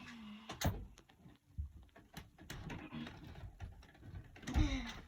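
Plastic clicks, knocks and scraping as a fire alarm device is handled and pushed onto nails in the wall, with the loudest knocks near the end.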